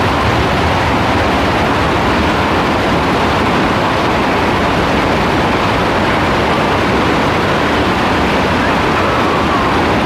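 Heavy rain pouring steadily, a dense unbroken hiss.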